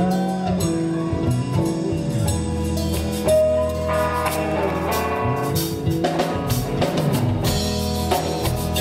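Instrumental band music with a drum kit and guitar playing a steady beat, with no singing.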